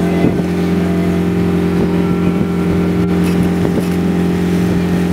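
Passenger boat's engine running steadily under way, a steady drone, with the rush of wake and wind over it and a few faint knocks.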